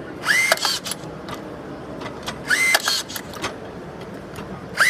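Makita DTR180 cordless rebar tier tying rebar crossings. Its brushless motor makes a quick whine that rises and levels off for about half a second as it wraps and twists the wire, then ends in sharp clicks. This happens twice, and a third tie cycle starts at the very end.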